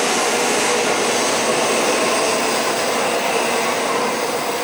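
Shinkansen bullet train running along the platform, a steady rushing and whirring that eases off slightly near the end.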